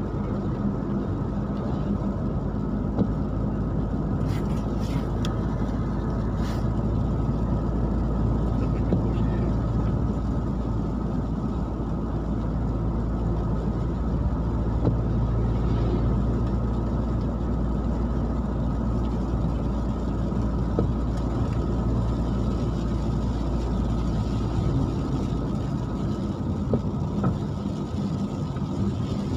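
Steady car cabin road noise: engine hum and tyre roar on a wet road while cruising at an even speed.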